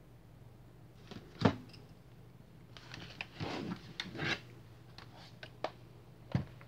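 Plastic laptop case handled and turned over on a wooden desk: a sharp knock about one and a half seconds in, then a stretch of rubbing and sliding, and a few small clicks and taps.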